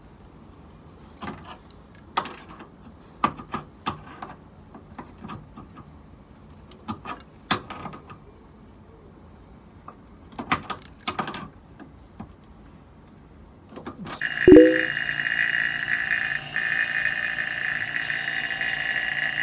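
Scattered metal clinks and knocks of tools and fittings being handled. About five seconds before the end, a steady machine whirr with a hiss starts with a brief low tone, then cuts off abruptly.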